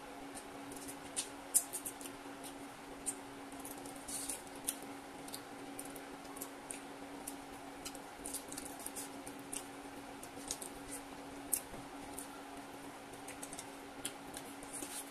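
Close-up eating sounds of a person chewing and sucking on braised chicken feet: irregular wet clicks and lip smacks, a few louder than the rest, over a steady low hum.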